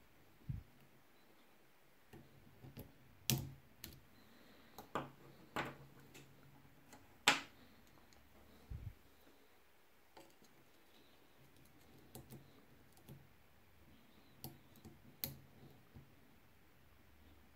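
Irregular sharp metallic clicks of a lock pick working the pins of an ABUS CISA profile cylinder lock, some much louder than others, with a couple of dull handling thumps.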